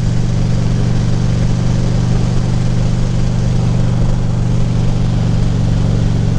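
2014 Harley-Davidson Ultra Classic Limited's V-twin engine running steadily at an even pitch, with a steady hiss over it.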